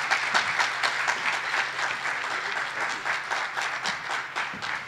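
Audience applauding, a dense patter of many hands that thins out and dies away near the end.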